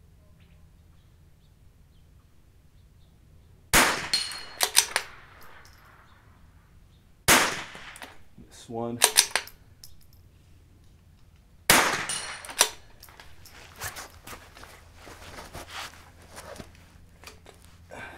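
Three shots from a .22 LR bolt-action rifle, about four seconds apart. Each shot is followed within a second by quick metallic clicks and clanks. Lighter handling clicks follow in the last few seconds.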